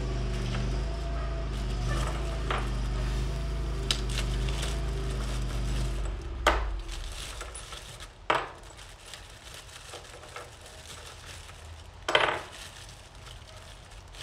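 Small metal bolts clinking and a plastic zip-top bag crinkling as they are handled, with sharper crinkles three times in the second half. A steady low mechanical hum runs underneath at first and stops about six seconds in.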